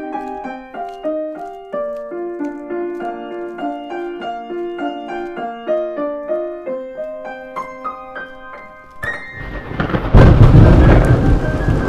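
Solo piano playing a melody of short notes. About nine seconds in it gives way to a loud rumble of thunder and steady heavy rain, with a few held piano notes carrying on over it.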